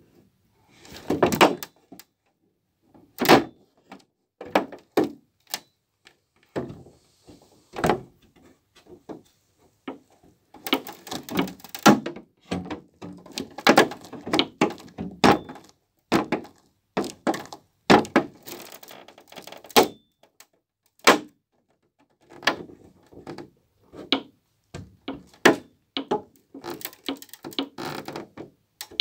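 Boots stomping on foam, each stomp a sharp thunk with a crunch as the foam is crushed. The stomps come at irregular intervals, closer together and nearly continuous through the middle stretch.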